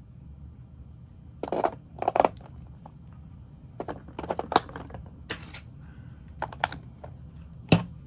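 Scattered plastic clicks and light knocks as AA batteries are handled and fitted into a toy laptop's battery compartment, with the plastic cover set in place; the sharpest click comes near the end.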